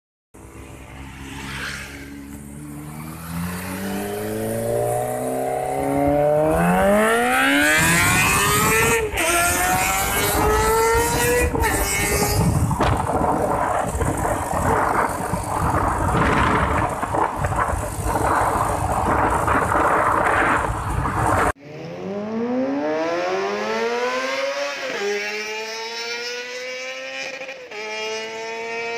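Kawasaki ZX-25R's inline-four engine accelerating hard through the gears, its pitch climbing high in each gear and dropping at each shift. A loud, rushing stretch follows. After a sudden cut about two-thirds of the way in, another run climbs up through two more gear changes.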